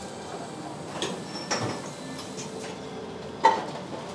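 Busy kitchen background with a steady hum, light clinks of metal utensils on dishes, and one sharp metal clink about three and a half seconds in.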